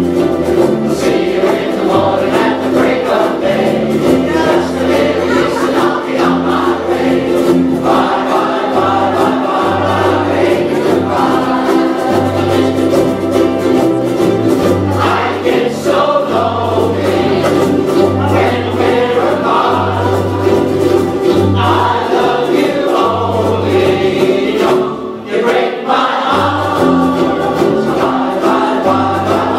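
A large ukulele ensemble strumming together while the players sing in chorus, over a steady bass line. The music dips briefly near the end.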